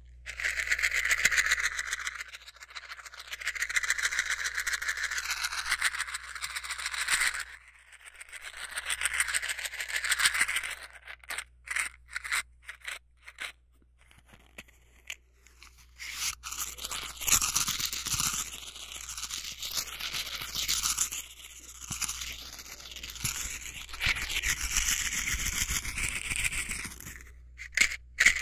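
Scratchy scraping and rubbing of small objects right at a binaural 3D microphone: several long rubbing strokes, a run of small separate clicks and taps about halfway through, then denser scraping and rustling.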